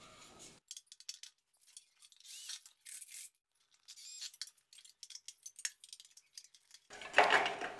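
Small cordless screwdriver whirring briefly a few times as it drives screws into the corner joint of an aluminium tube frame, with light metallic clicks of the frame pieces being handled and fitted. Faint throughout.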